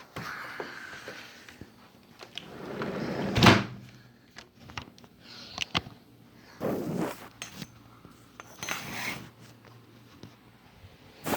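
A series of knocks, scrapes and clicks from things being handled and moved, the loudest about three and a half seconds in, over a faint steady hum.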